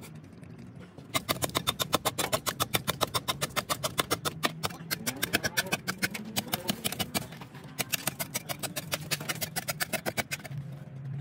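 A large livestock guardian dog lapping water from a trough, a quick, steady run of wet laps at about five or six a second.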